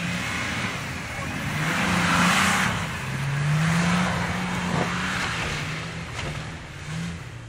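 Nissan Patrol Y60 off-road SUV engine revving hard as it drives across a snowy field, its pitch rising and falling with the throttle. A rush of tyres throwing up snow swells about two seconds in and again around four seconds.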